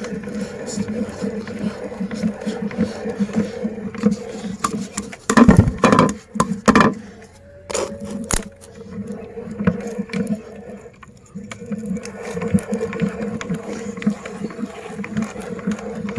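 Meat grinder running and crushing cookies: a steady hum with rough crackling grinding, broken by a few loud crunches about five to seven seconds in and a brief lull a few seconds later before the grinding picks up again.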